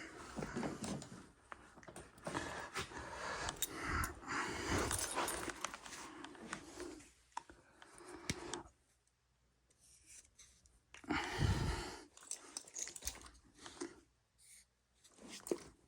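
Hands-on work noise: irregular scraping, rustling and small metallic clicks of tools and parts being handled. The noise stops for about two seconds past the middle, then comes back with one louder scrape and a few scattered clicks.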